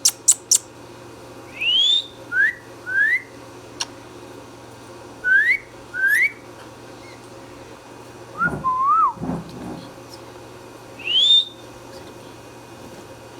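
Indian ringneck parakeet whistling: a run of short, clean rising whistles with pauses between them, a few sharp squeaks at the start and a lower warbling call about eight seconds in.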